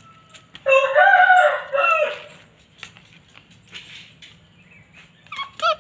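A rooster crowing once: a single call about a second and a half long, followed near the end by a couple of short pitched calls.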